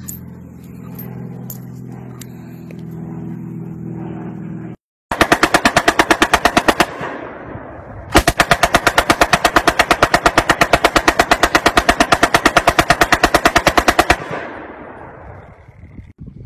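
Belt-fed machine gun firing fully automatic: a short burst of about two seconds, then after a one-second pause a long burst of about six seconds, the shots trailing off in an echo. Before the shooting there is a low steady hum with a few light clicks.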